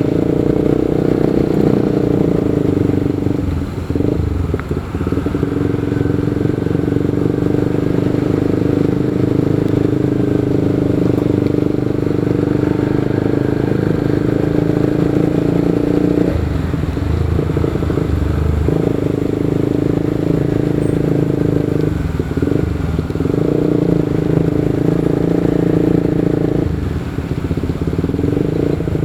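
Motorcycle being ridden, its engine running steadily under a constant rumble of road and wind noise; the engine note drops away briefly about four times.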